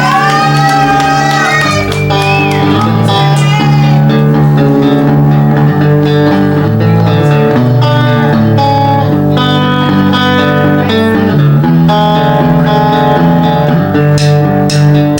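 Electric guitar playing the opening of a rock song live, ringing chords with a note that bends and glides upward in the first couple of seconds.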